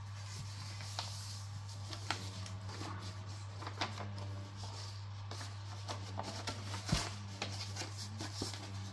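A sheet of paper being handled and folded into a paper airplane on a cloth-covered table: rustling, crinkling and light taps as the sheet is turned over and creased, with one sharper click about seven seconds in. A steady low hum runs underneath.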